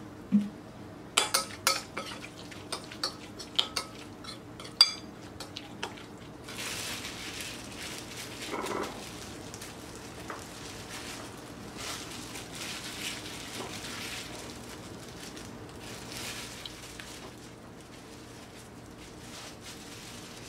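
A metal spoon clinking about ten times against a glass bowl as a thick chili seasoning is stirred. From about six seconds in, soft rustling and squishing of plastic-gloved hands spreading the seasoning over perilla leaves on a plate.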